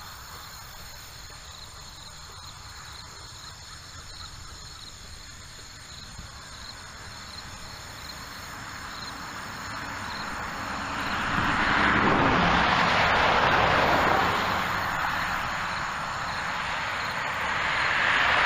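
Quiet rural background with faint steady insect tones, then the tyre hiss of a passing vehicle swelling and fading from about ten seconds in, with a second vehicle swelling near the end.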